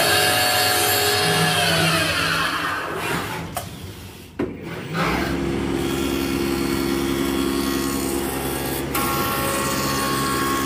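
CNC router spindle carving a wooden blank, running with a steady whine whose pitch falls away about three seconds in. After a brief drop and a click, a CNC wood lathe spins a wooden blank and cuts it, a steady machine whine over a low hum.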